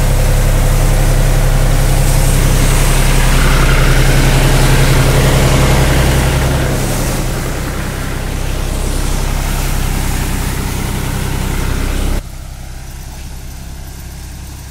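Belt-driven grain thresher running behind a diesel tractor engine: a steady low engine hum under the loud rushing noise of the threshing drum. About twelve seconds in the sound cuts abruptly to a much quieter, more distant machine hum.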